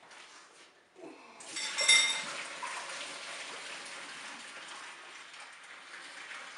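Cooking water poured out of a Cookeo multicooker's metal bowl, a steady splashing rush that starts about a second and a half in with a brief metallic ring of the bowl and runs on for about five seconds.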